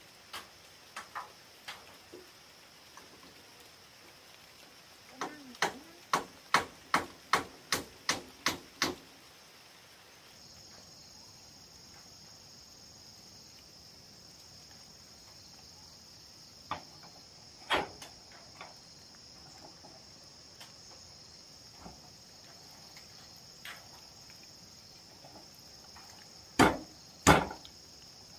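Sharp knocks from fitting corrugated metal roof sheets onto a wooden frame: a quick, even run of about nine strikes, about two a second, a few seconds in, scattered lighter knocks, then two loud strikes near the end. A steady high chirring of insects sets in about a third of the way through.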